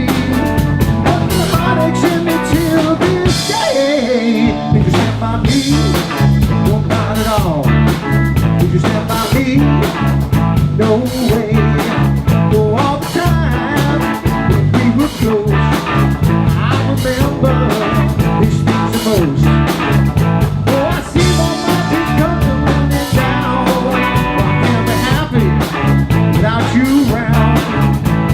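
Live rock band playing a song, with drum kit, bass and electric guitar driving a steady beat.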